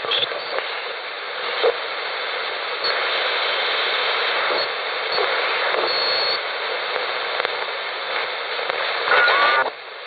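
Malakhit DSP shortwave receiver in AM mode being tuned across the 3 MHz band, giving out steady band-limited hiss and static. Faint whistles and snatches of signal pass by as it crosses stations, with a brief high whistle about six seconds in and a short burst of a station's voice just after nine seconds.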